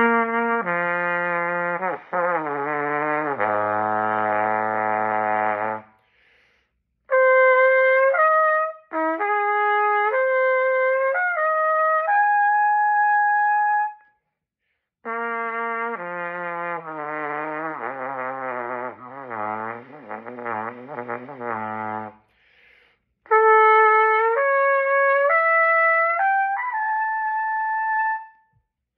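Solo trumpet practising range exercises in four phrases with short breaths between them. Twice, a wavering, sliding line sinks to very low notes. Twice, a line of distinct stepped notes follows.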